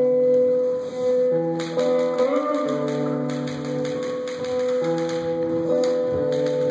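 Recorded instrumental music with long held melodic notes changing every second or so, and a few sharp clicks or taps over it.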